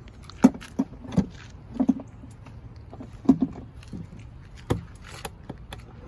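Handling noises on a Mercury 9.9 outboard motor and the aluminum boat it is mounted on: scattered sharp clicks and knocks, about six over several seconds, some with a short metallic ring. The engine is not running.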